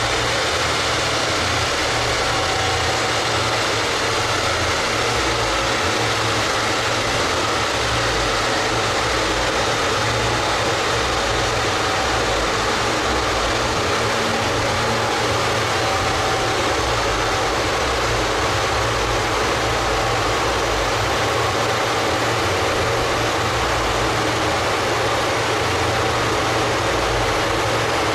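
Car engine idling steadily on a rolling road, with a large dyno cooling fan blowing hard in front of it; the pitch stays level, with no revving.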